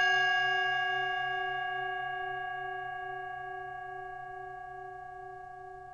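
A single struck bell rings and slowly fades away, its tone wavering gently.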